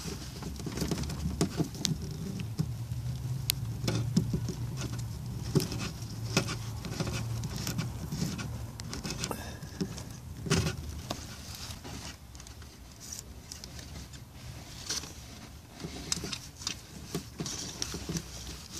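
Irregular rustling with scattered clicks and knocks as a wiring harness, plastic connectors and a rear-washer hose are handled and pulled through the tailgate's wiring channel, over a low steady hum.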